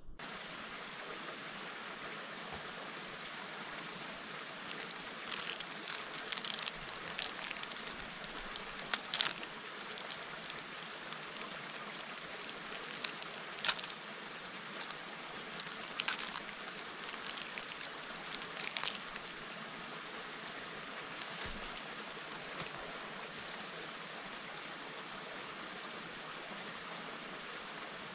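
A steady, even rushing noise. A handful of sharp clicks stand out over it in the middle stretch.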